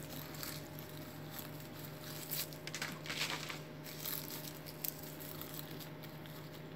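Faint chewing of a mouthful of fresh neem leaves and twigs: soft wet crunching with a few crisp crackles, loudest in the middle.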